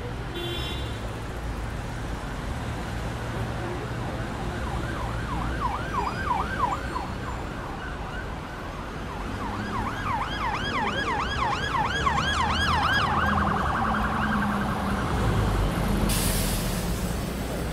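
Emergency vehicle siren in a fast yelp, its pitch sweeping up and down about four times a second, breaking off briefly and starting again, then holding a steady high tone. A low rumble runs underneath, and a burst of hiss comes near the end.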